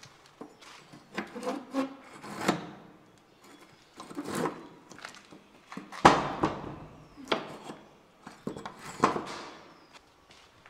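Irregular scrapes, rubs and knocks of something being moved or clambered over, with the sharpest knock about six seconds in and another near nine seconds.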